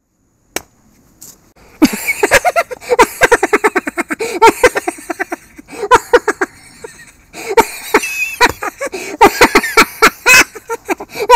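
A man's maniacal cackling laughter, a Joker-style laugh: rapid 'ha' bursts, about six or seven a second, starting about two seconds in and running in several long peals with short breaks between.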